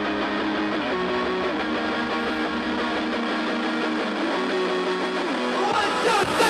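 Background music led by a strummed guitar, with held chords that change every second or two and a rising swell near the end.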